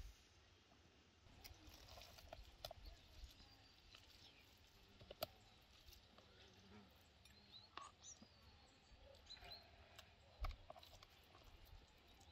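Near silence: faint outdoor background with scattered soft clicks and a few faint high chirps.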